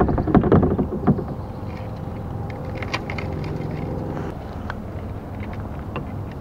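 Knocks and rattling from a fishing rod being worked at a lure snagged in willow branches overhead, loudest in the first second, then scattered small clicks over a steady low rumble.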